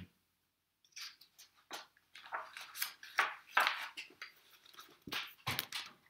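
Paper pages of a hardback picture book rustling as a page is turned and the book is shifted in the hands: a string of irregular scrapes and crackles, starting about a second in.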